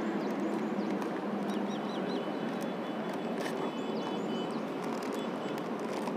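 Scissors snipping at a tough plastic courier mailer with a few faint clicks, over a steady outdoor hiss. Small birds chirp a few times in the background.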